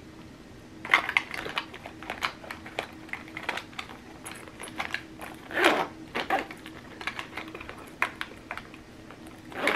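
Small toiletries being packed into a clear plastic pouch: a scattered run of light clicks, taps and plastic crinkles from the bottles and the pouch being handled, louder in a couple of bursts.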